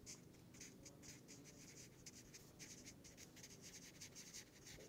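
Faint scratching of a felt-tip marker pen writing on paper, in many short, irregular strokes.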